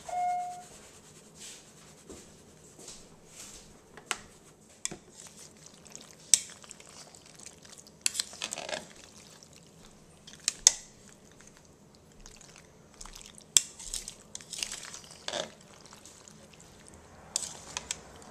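Scattered sharp clicks, taps and brief scraping swishes of hands working at a ceramic bowl of mayonnaise pasta salad. A short squeaky tone sounds right at the start.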